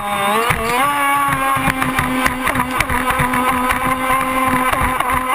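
ProBoat Impulse 31 RC boat's brushless electric motor whining under throttle, its pitch stepping up about half a second in and then holding steady, over the rush of water along the hull.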